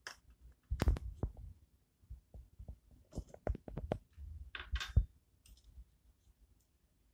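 Dried fruit (raisins and sticky dates) dropping into a stainless-steel mixer-grinder jar: scattered soft thuds and clicks in a few clusters. The loudest come about a second in and again around five seconds in.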